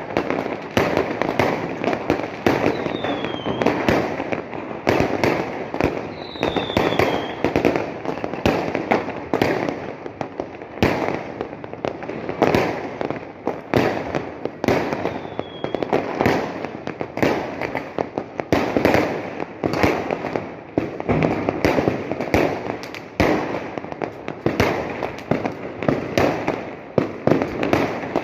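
Fireworks going off in a dense, continuous barrage of bangs and crackles, with a short falling whistle heard three times.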